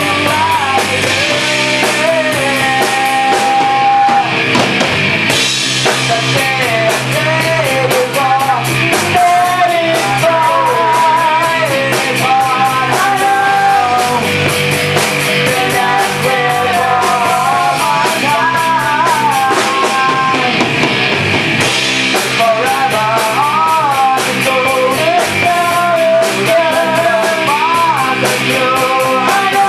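A rock band playing a song live: electric guitar and electric bass over a drum kit with busy cymbals, a wavering melody line on top.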